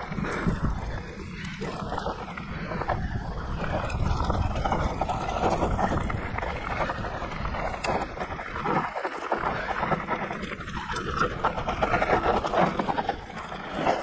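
Riding noise from a Voodoo Zobop-E electric mountain bike: wind buffeting the microphone, with irregular rattles and knocks from the bike throughout.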